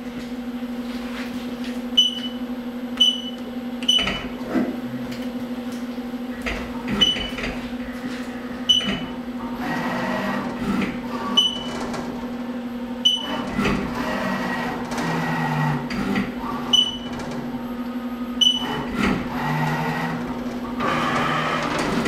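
Haas TM-1 CNC mill probing cycle: a steady machine hum, with the axes whirring through short moves as a Renishaw spindle touch probe feels the aluminium blank. About a dozen short, high beeps, each with a click, mark the probe's touches.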